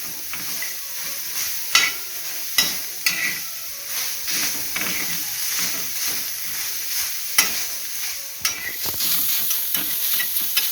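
Chopped onion sizzling in a dry tawa with no oil or ghee, slowly wilting as its juice cooks off. It is being stirred, with irregular sharp scrapes and knocks against the pan.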